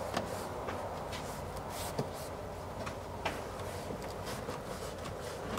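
A few short, sharp clicks and light handling noise, three clicks in all, as an engine-bay trim piece is worked into place, over quiet room noise with a faint hum.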